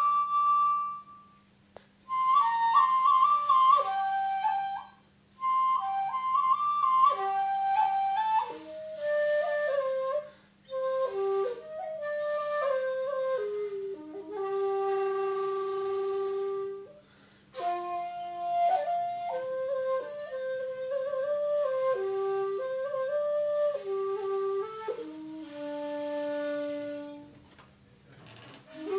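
Shakuhachi played solo: a slow melody of long held notes, some bending in pitch, in phrases broken by short breath pauses. It settles on a long low note near the end.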